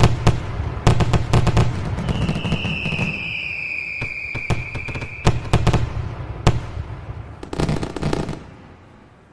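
A rapid, irregular volley of sharp cracks and bangs, with a high whistling tone that starts about two seconds in, drifts slightly downward and stops after about three seconds. A last dense cluster of cracks comes near the end, then the sound fades away.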